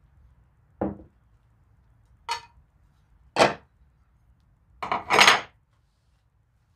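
Parts being handled on a workbench: four separate knocks and clatters, the first dull, the last a double clatter that is the loudest and longest.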